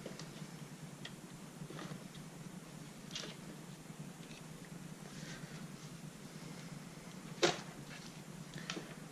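Faint clicks and taps of a motherboard being handled and fitted into a PC case, with one sharp knock about seven and a half seconds in, over a steady low hum.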